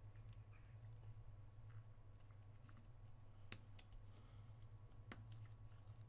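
Faint small clicks and taps from handling the opened iPhone's parts during reassembly, with two sharper clicks about three and a half and five seconds in, over a steady low hum.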